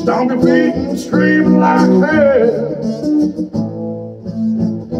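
A man singing a country-style song over his own strummed acoustic guitar; his voice drops out about three and a half seconds in, leaving the guitar strumming on its own.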